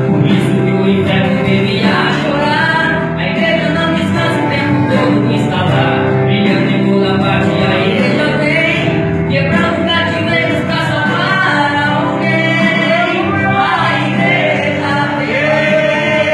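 Christian gospel song with singing voices, choir-like, over instrumental accompaniment.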